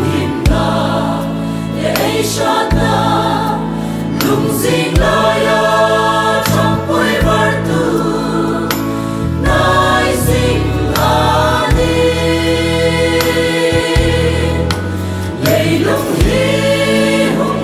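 Mixed choir of men and women singing a gospel song in Hmar, in harmony over instrumental accompaniment with steady low notes and sharp hits now and then.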